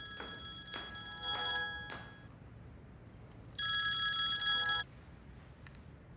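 Mobile phone ringtone: several steady electronic tones sounding together, in two rings. The second ring, from about three and a half seconds to nearly five seconds in, is the louder.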